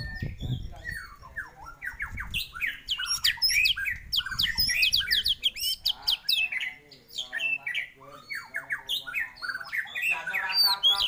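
Male white-rumped shama (murai batu) singing a fast, varied song of sharp whistled notes and quick up-and-down glides, mixed with harsh rasping chatter in the second half.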